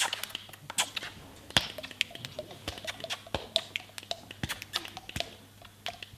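Irregular sharp taps and clicks, a few a second, with faint brief sounds between them.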